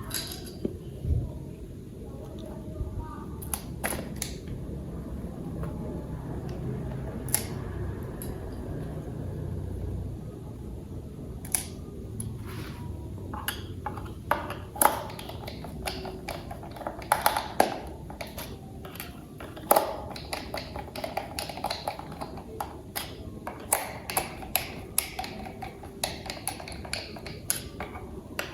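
Plastic toy parts being handled and clicked together: a run of sharp clicks and taps, busier in the second half, over a low hum that fades out about ten seconds in.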